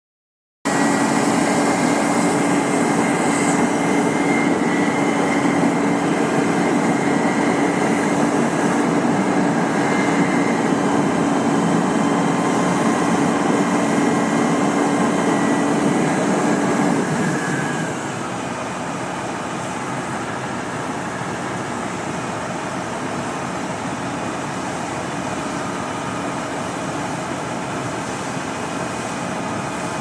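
Tree-service heavy equipment, a crane truck and a wood chipper, running steadily with a strong hum and a high whine. About 17 seconds in, an engine winds down, its pitch falling, and the sound settles to a quieter steady drone.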